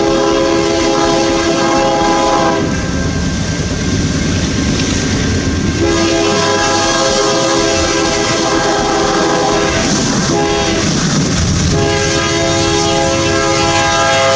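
BNSF diesel freight locomotive's multi-tone air horn sounding the grade-crossing signal: two long blasts, a short one, and a final long blast still sounding at the end, over the rumble of the approaching train.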